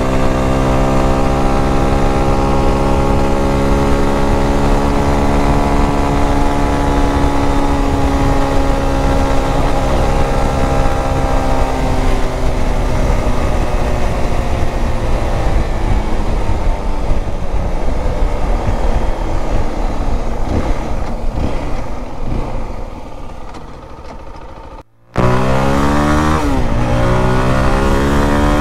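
Zontes T350X motorcycle's single-cylinder engine running steadily, its pitch slowly falling as the bike eases off, with the engine note fading into wind rush about halfway that then dies down. After an abrupt cut about 25 seconds in, the engine revs up through two or three quick gear changes.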